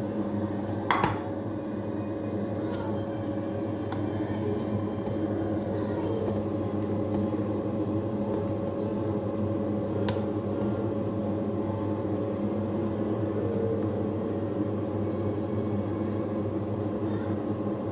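Steady mechanical hum made of several held low tones, such as a kitchen appliance motor makes. A sharp metal clink comes about a second in and another about ten seconds in, as a ladle works in a steel soup pot.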